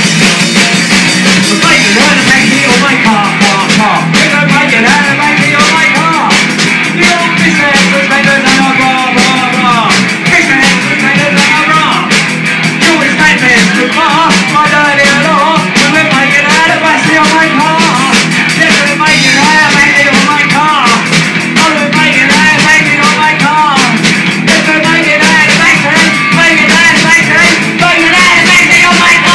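Studio recording of a rock song played by a full band, loud and steady.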